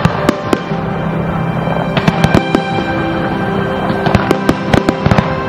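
Aerial firework shells bursting in a rapid series of sharp bangs, in two close clusters about two and four seconds in, over loud accompanying music with long held notes.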